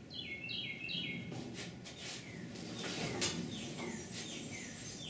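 Hand-operated sheet-metal pan brake being worked, with metal clanks from the bending leaf and sheet a little over a second in and again around three seconds. Repeated short, high, falling chirps run through it as well.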